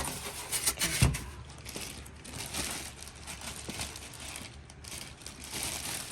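Packaging crinkling and rustling as it is handled and pulled off a new sewing machine, with a couple of sharp knocks and a low thump in the first second or so.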